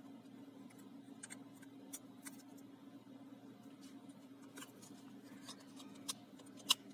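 Scattered small clicks and taps of a disassembled smartwatch phone's parts and tools being handled, a sharper click near the end, over a steady low hum.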